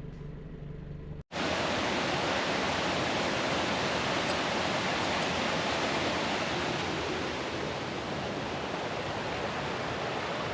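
Low hum of a car in the cabin for about the first second, then a sudden cut to the steady rushing of flowing water.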